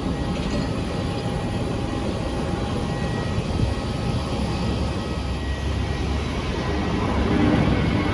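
Airliner engines running: a steady low rumble with a faint steady whine above it, growing louder near the end.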